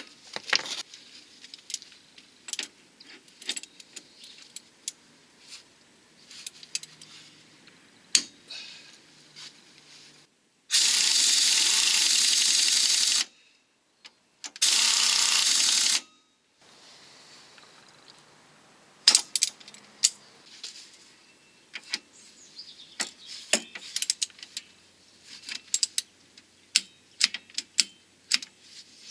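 Metal hand tools clicking and clinking on suspension parts, in irregular sharp clicks like a ratchet being worked. Twice in the middle comes a loud, steady hiss lasting a couple of seconds each time.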